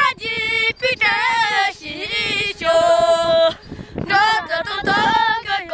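Two young novice monks singing together without accompaniment, in short phrases with held notes that waver and bend in pitch.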